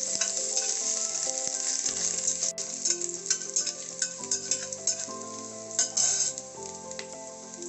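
Chopped ginger, cumin seeds and black peppercorns sizzling in hot ghee in a stainless-steel pressure cooker. A steel slotted spatula stirs them and clicks and scrapes against the pot now and then. The sizzle fades toward the end, and soft background music with a melody plays underneath.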